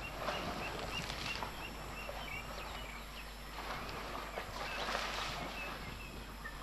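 Elephant calf splashing and wallowing in a muddy waterhole, in uneven bouts of sloshing. A bird chirps a quick run of short notes in the first two seconds and a few more later.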